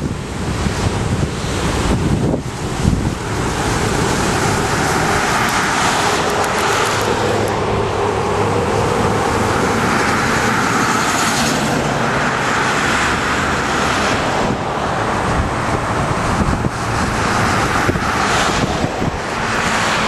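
Wind buffeting the microphone over steady outdoor traffic and engine noise, with no distinct single event.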